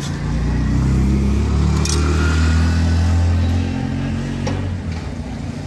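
Motor vehicle engine running close by, loud for the first three and a half seconds and then dropping away, with a couple of short clicks.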